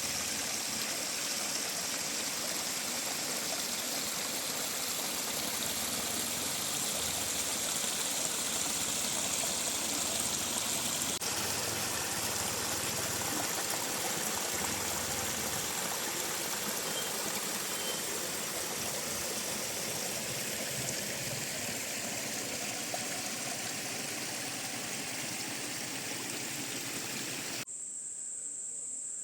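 Waterfall water rushing and splashing in a steady, even wash. Near the end it cuts off suddenly, giving way to insects singing in a thin, high, steady buzz.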